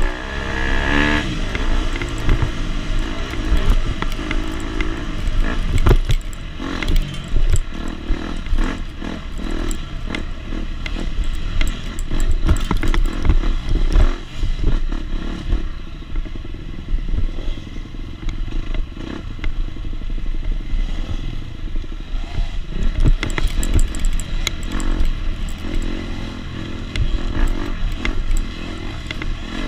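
250 SX dirt bike engine revving up and down as it is ridden hard over rough ground, with frequent clatter and knocks from the bike.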